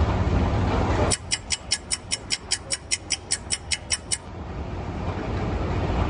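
Ambient background noise with a low hum. About a second in it drops away and a rapid run of about fifteen short high-pitched chirps or ticks follows, about five a second for some three seconds, before the background noise swells back.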